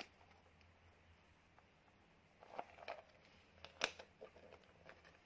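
Near silence with a few faint, short clicks and rustles from a small glossy jelly-plastic handbag being handled, the loudest a little past halfway.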